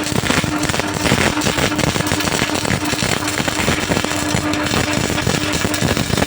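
MIG welding arc crackling steadily and densely, with a steady low hum underneath.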